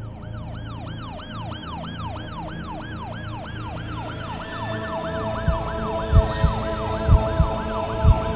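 A siren wailing up and down in quick cycles, about three a second. About five seconds in, deep thumps in a beat join it and become the loudest sound.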